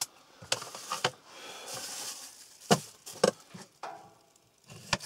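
Small objects being handled and set down: a string of sharp clicks and knocks at uneven intervals, with a brief rustle about two seconds in.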